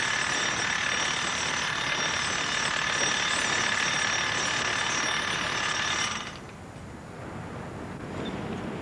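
Power drill running steadily with a self-drilling anchor as its bit, cutting into a concrete ceiling, with a whine over the grinding; it stops abruptly about six seconds in.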